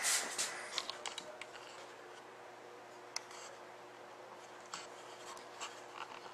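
Scattered faint clicks and light rustling handling noise, busiest in the first second and with a sharper click about three seconds in, over a steady low hum.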